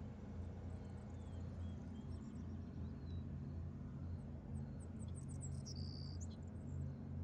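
A low steady hum, with short high chirps scattered through it that come thicker in the second half, and a brief steady high whistle shortly before the end.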